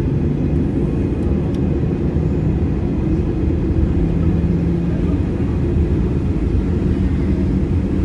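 Steady low rumble inside an airliner's cabin as it taxis after landing.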